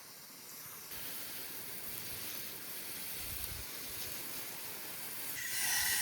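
Water spraying from a garden hose: a steady hiss that grows louder near the end.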